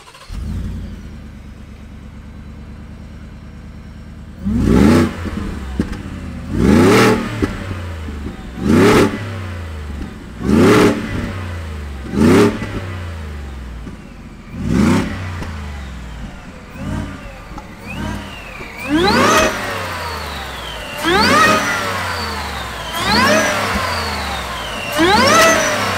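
2020 Shelby Super Snake F-150's Whipple-supercharged 5.0 L Coyote V8 with Borla exhaust starts up and idles steadily. It is then revved in about six sharp blips two seconds apart, a few lighter blips, and four more revs in which the supercharger's high whine climbs with engine speed.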